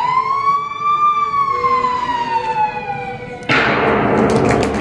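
A single siren wail that rises in pitch for about a second, then falls slowly, and cuts off suddenly about three and a half seconds in. It serves as the cue for the police arriving in the play. A loud burst of noise with knocks follows.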